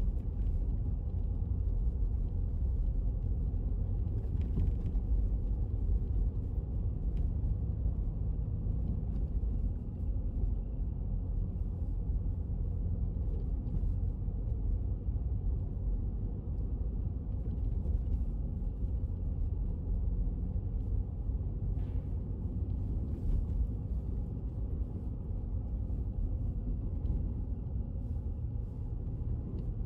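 Steady low rumble of a car driving slowly over packed snow, heard from inside the cabin: engine hum under tyre and road noise.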